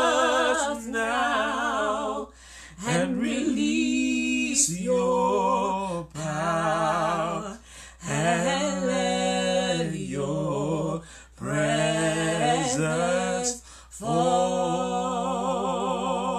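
A man and a woman singing a slow gospel worship song a cappella in sustained, melismatic phrases with vibrato. The phrases are broken by brief pauses for breath every few seconds.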